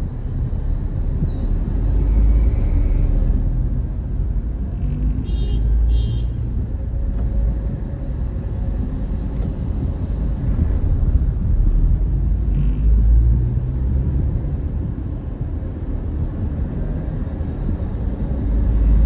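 Car driving in city traffic, heard from inside the cabin: a steady low rumble of engine and road. A few short high beeps come about five and six seconds in.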